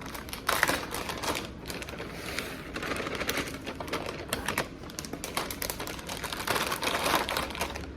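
Rapid crinkling and clicking as shredded cheese is shaken from a plastic bag into a mixing bowl, louder in a few short spells.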